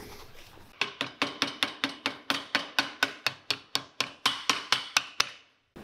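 Rapid hammer taps on a leather sole and welt held on a metal cobbler's stand, about five blows a second, each with a short metallic ring. They begin just under a second in and stop just after five seconds.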